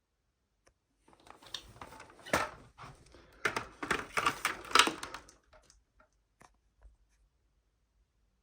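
A quick run of clicks, rattles and rustling, like something plastic being handled, lasting about four seconds with two louder knocks, then a few scattered clicks.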